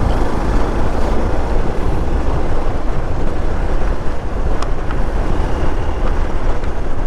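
Motorcycle riding noise: wind rushing over the microphone, with the engine and tyre rumble underneath, steady and unbroken.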